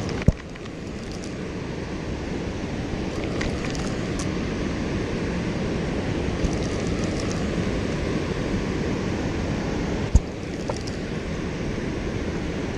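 Steady rush of water pouring through the dam's spillway gates, with wind buffeting the microphone. Two sharp knocks cut through it, one just after the start and one about ten seconds in.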